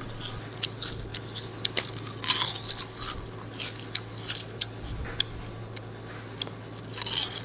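Crisp air-fried kale chips crackling and crunching as they are picked up and dropped by hand. Many sharp little crackles, with louder crunches about two seconds in and near the end.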